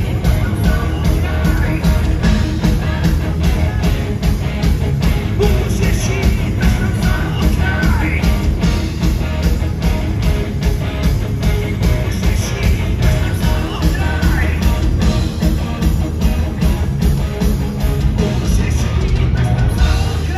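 Live rock band playing loud, with electric guitars, bass, a steady drumbeat and a singer's voice on top. The music stops right at the end.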